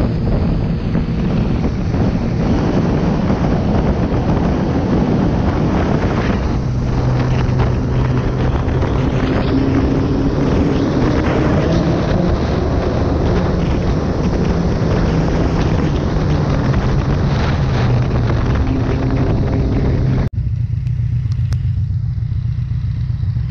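Motorcycle engine running under way in a road tunnel, with heavy wind noise on the microphone; the engine note rises a little around the middle. About three seconds before the end it cuts to a lower, steady engine rumble with the wind gone.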